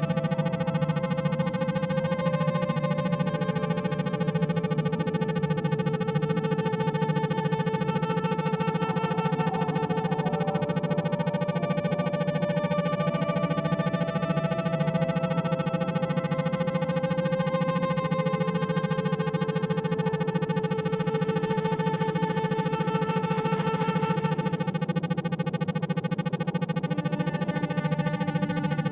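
Synthesizer drone music: a steady low hum under slow, held electronic tones that change every few seconds, with a fast, even pulsing throughout, as in isochronic-tone meditation tracks.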